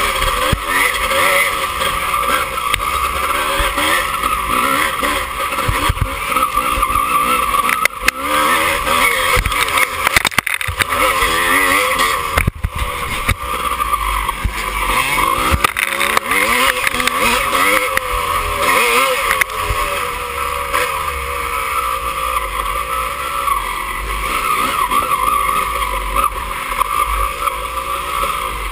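Dirt bike engine running hard and revving up and down as the bike is ridden over a muddy off-road course, with wind rumble on the bike-mounted microphone.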